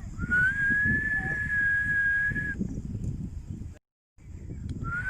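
A person whistling long, steady high notes to call up the wind for kite flying. Each note slides up slightly into pitch and is then held: one lasting about two and a half seconds, and another beginning near the end. Wind buffets the microphone underneath.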